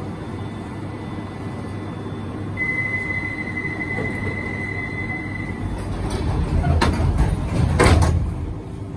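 Inside a 1972 Stock London Underground train stopped at a station: a steady high door warning beep for about three seconds, then the sliding doors close with two loud knocks near the end, over the carriage's low rumble.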